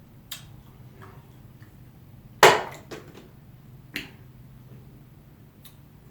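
A few scattered clicks and knocks from eating and handling things at the table, the loudest a sharp knock about two and a half seconds in, over a low steady hum.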